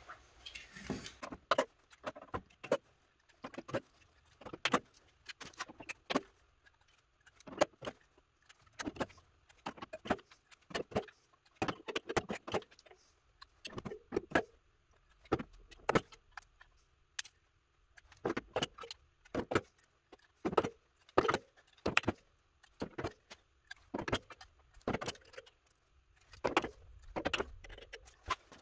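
Unispotter stud welder tacking pull studs onto a dented steel body panel: a long string of short, sharp snaps at irregular intervals, about one or two a second, mixed with small metallic clinks from handling the studs.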